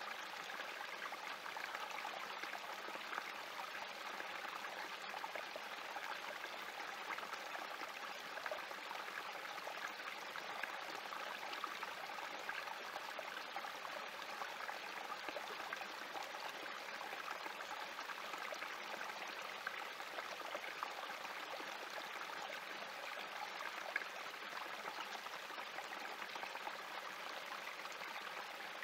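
Small creek trickling steadily over rocks in a little cascade.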